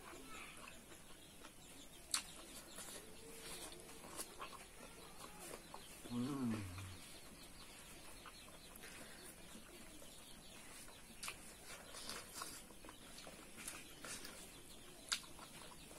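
Hand-eating of pork curry and rice: soft chewing with sharp lip-smack clicks every few seconds. About six seconds in comes a short call of under a second whose pitch wavers and falls, likely a bird.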